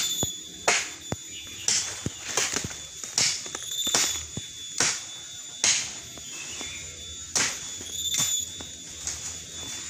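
Cut leafy branches and dry leaves rustling and crackling as they are trampled and pulled through, in irregular sharp swishes about every half second to a second, over a faint steady high tone.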